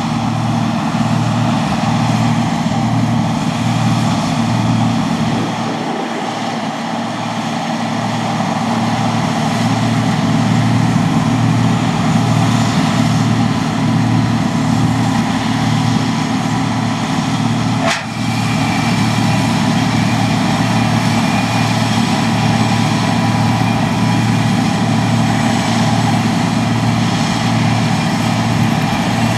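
John Deere 2264 combine harvester running steadily while cutting spring barley: a loud, even engine hum with a regular low pulse under the clatter of the machinery. A single sharp click comes about 18 seconds in.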